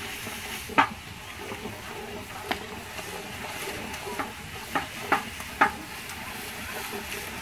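A long wooden paddle stirs a large aluminium pot of curry frying over a wood fire, with a steady sizzle. Sharp knocks against the pot come once about a second in, again a little later, and several times in quick succession in the second half.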